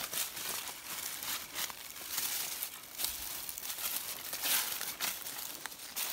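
Footsteps crunching irregularly through dry leaves and pine needles.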